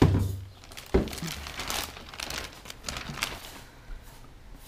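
Large clear plastic bag crinkling and rustling as a plastic portable toilet is worked out of it by hand, with two thumps at the start and about a second in.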